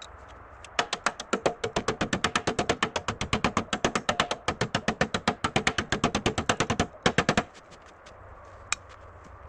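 Ratchet wrench clicking in a fast, steady run of about ten clicks a second for some six seconds, then stopping, with one lone click a second later.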